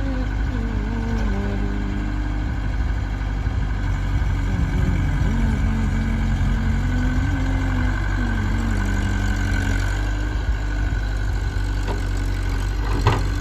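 Heavy diesel engine running steadily, with a steady high whine and pitched tones that shift up and down over it, and a brief sharp click near the end.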